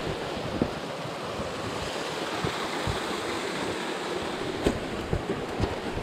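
Steady rushing of water from the nearby waterfall and stream, with a few short knocks scattered through it, the sharpest about two-thirds of the way in.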